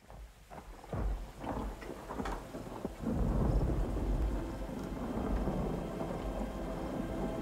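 Thunderstorm sound effect: a few sharp cracks of thunder in the first couple of seconds, then a steady low rumble of thunder with rain.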